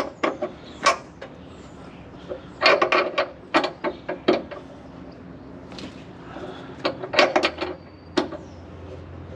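Metal clanks and knocks from tools and parts being worked on a combine, in several clusters of sharp strikes. A low steady hum comes in about seven and a half seconds in.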